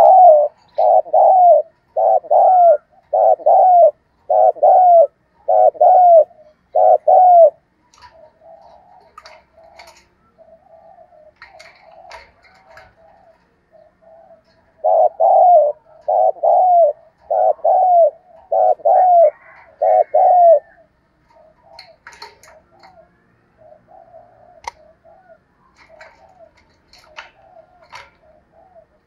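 Spotted dove cooing. A run of about eight loud coos, one a second, is followed by softer coos, then a second run of about six loud coos, and then more soft coos with faint scattered clicks.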